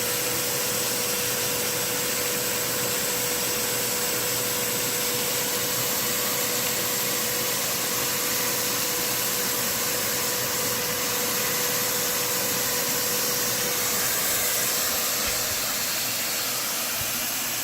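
Shop vac running steadily with a constant whine, vacuuming burrs off the ground.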